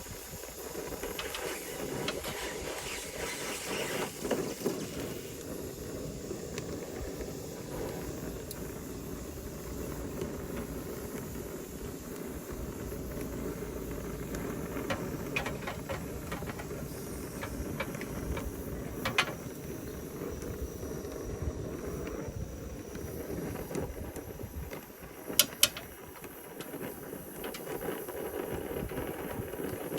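Brazing torch flame burning with a steady hiss while leaks on an air-conditioner coil are brazed under a nitrogen purge. A few sharp clicks come in the middle and a louder pair of clicks near the end.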